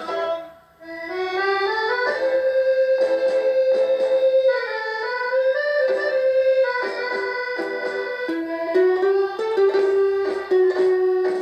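Instrumental tango break: an accordion carries the melody in long held notes over a plucked guitar accompaniment. The music drops out briefly just under a second in, then comes back.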